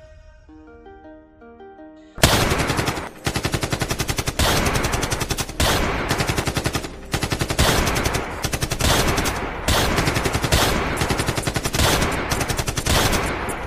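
Automatic gunfire sound effect: rapid machine-gun fire in bursts of about a second each, one after another with only brief gaps. It starts about two seconds in, after a few soft music notes.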